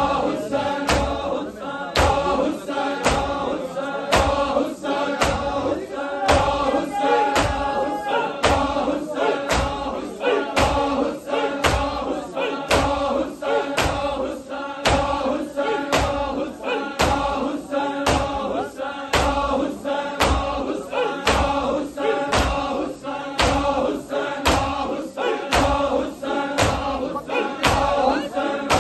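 A large crowd of men chanting a noha together while striking their bare chests in matam. The chest slaps land in a steady rhythm of about two a second.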